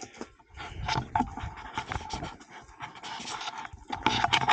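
Rapid, heavy panting close to the microphone.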